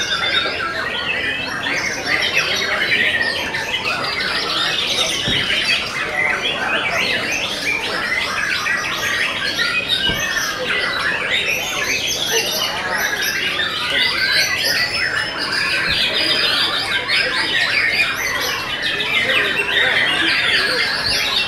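White-rumped shamas (murai batu) singing at once in a dense, unbroken chorus of rapid, high, varied phrases, typical of a shama singing contest with many caged birds competing.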